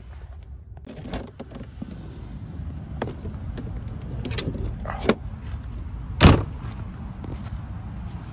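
Motorhome habitation door clicking open, a few knocks while stepping out, then a loud bang about six seconds in as the door is shut, over a low steady rumble.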